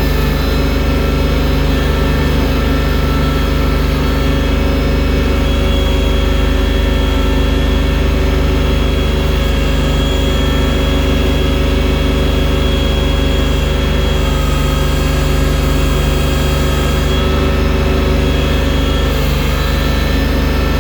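Engine of a loader-equipped tractor running steadily while it clears deep snow, with a thin steady whine above the engine note.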